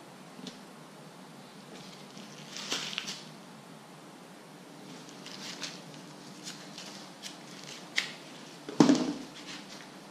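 Scattered light clicks and short rustles of things being handled, with a louder knock near the end.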